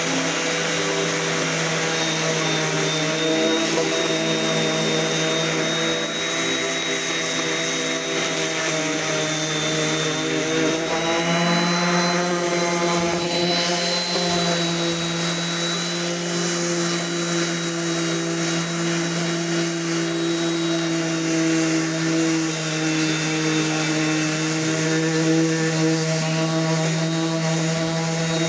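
DeWalt 5-inch random orbit sander running steadily while sanding the flat of an oak cabinet door, a motor hum with the pad rubbing on the wood. Its pitch steps up slightly about eleven seconds in.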